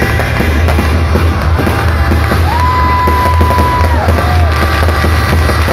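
Fireworks bursting and crackling over loud music with a steady heavy bass, with crowd noise. About two and a half seconds in, a whistling tone holds for over a second, then drops away.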